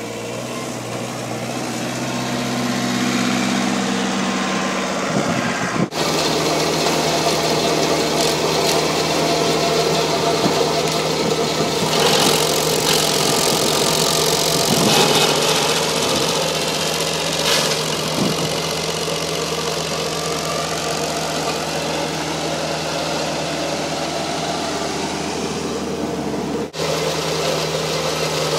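2002 Vermeer SC50TX stump grinder's engine running steadily, growing louder over the first few seconds. There is a harsher, noisier stretch in the middle and two brief breaks in the sound.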